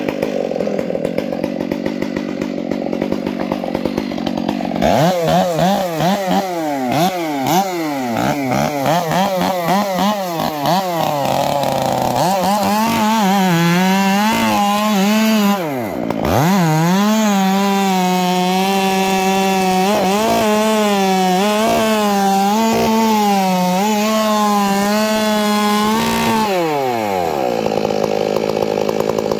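Gas chainsaw with a long bar cutting into a felled redwood log. From about five seconds in the engine runs at full throttle, its pitch wavering as it loads up and clears in the cut. The pitch dips sharply once, about halfway through, then falls away near the end as the throttle is released.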